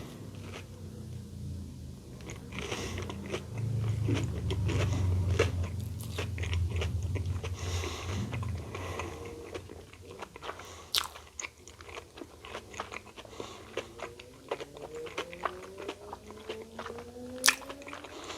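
Biting into and chewing a battered Korean corn dog, with sharp crunches close to the microphone. Street traffic can be heard behind it: a low rumble in the middle, then a vehicle engine rising in pitch as it speeds up near the end.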